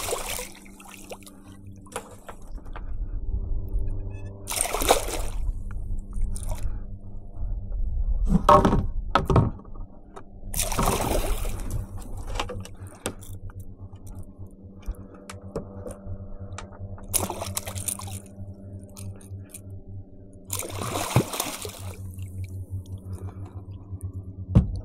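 Water splashing beside a kayak's hull: a splash as a released fish kicks free, then several more short splashes a few seconds apart.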